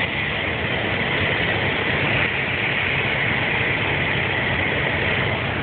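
Engine and propeller of a single-engine high-wing light aircraft running steadily, heard from inside the cabin.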